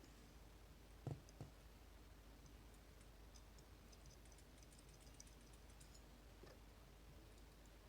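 Faint scattered clicking of a magnet-tipped pick working the magnetic sliders of a MIWA slider lock, with two soft knocks about a second in.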